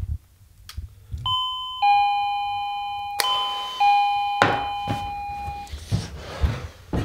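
Two-tone doorbell chime rung twice, each a ding-dong of a higher note then a lower one that rings on and fades. The first comes about a second in, the second about three seconds in. Shuffling movement and footsteps follow near the end.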